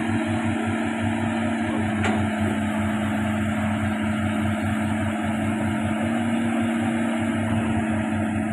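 Hitachi Zaxis 110 excavator's diesel engine running steadily, with a single sharp click about two seconds in.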